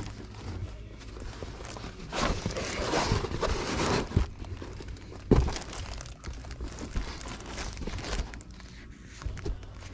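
Crinkling and rustling as things are rummaged through in a storage bin, with one sharp knock about five seconds in.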